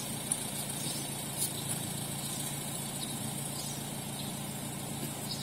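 An SUV's engine idling steadily with an even low hum. A few light clicks and knocks come about a quarter second and about a second and a half in, as the car's doors are opened.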